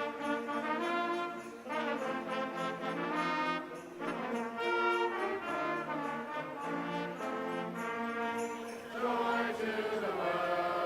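Music with brass instruments playing a run of held chords that change every second or two.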